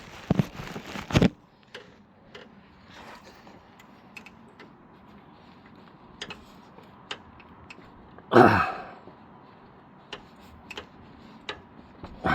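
Isolated metallic clicks of a flex-head ratchet spanner being worked, a stroke at a time, on an oil filter, with handling rustle near the start and one louder, fuller noise about eight seconds in.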